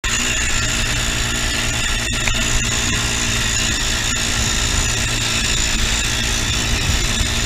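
Quad bike engine running steadily while riding over sand, heard close up from the handlebars with rumble and wind noise mixed in.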